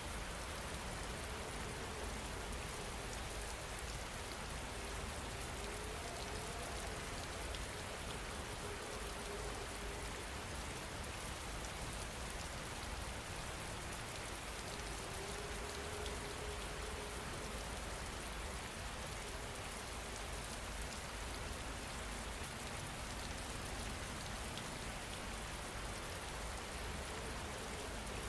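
Steady rain falling, an even unbroken hiss of drops that holds the same level throughout.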